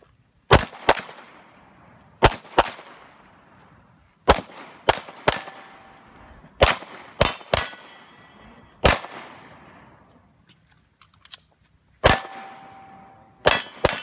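Pistol shots fired in quick pairs and threes, about fourteen in all, each with a short echoing tail and a pause of about three seconds before the last few shots. A short ringing tone follows a few of the shots.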